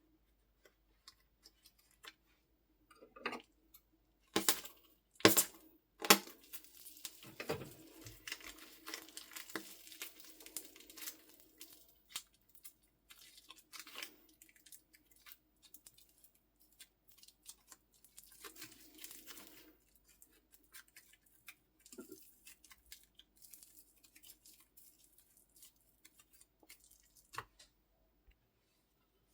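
Slime and soft clay being worked by hand: sticky crackling and small pops as it is stretched and squeezed, with three sharp, loud pops about four to six seconds in.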